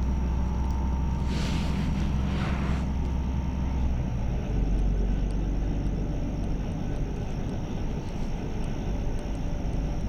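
LiAZ bus engine running with a steady low drone. About four seconds in the drone drops a little in pitch as the engine slows. Two short hissing noises come about one and a half and two and a half seconds in.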